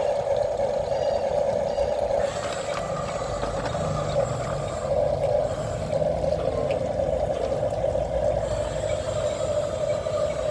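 Radio-controlled model truck's small electric motor and gearbox whining steadily as it works.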